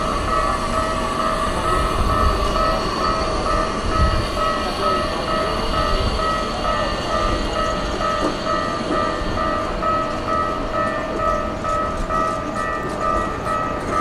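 Railway level-crossing warning bell ringing in an even pulse of about two strikes a second, over the low rumble of a Keikyu train.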